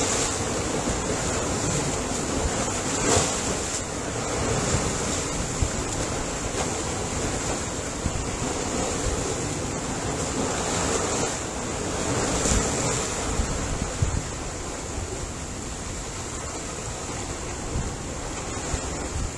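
Ocean surf: a continuous wash of breaking waves, steady with a few slight swells in loudness.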